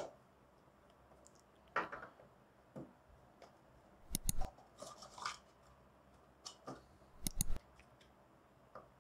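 Unboxing handling noise from a small cardboard smartwatch box: scattered light clicks, taps and short scrapes as the box insert is lifted and the watch strap is pulled out. There are a couple of clusters of sharper clicks around four and seven seconds in.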